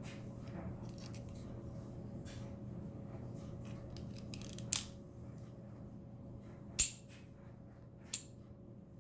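Small clicks from the parts of a 1/2.5-scale Beretta model pistol being handled, with three sharp, louder clicks in the second half, over a faint steady hum.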